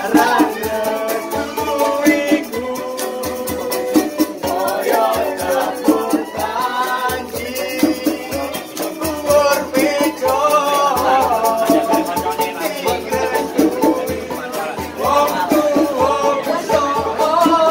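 Street musicians performing live: singing over instrumental accompaniment, with a steady beat from a bass line and a shaker-like percussion.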